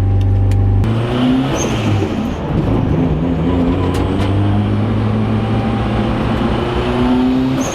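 Engine of a 450-horsepower Nissan 240SX (S13): a steady idle that changes abruptly about a second in to a loud, varying engine note that rises and falls as it is revved or driven.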